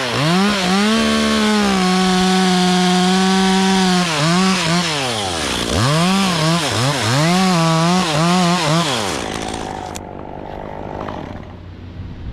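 Two-stroke chainsaw running at full throttle, dropping off and revving up again several times in quick succession, then its engine note stops about nine seconds in.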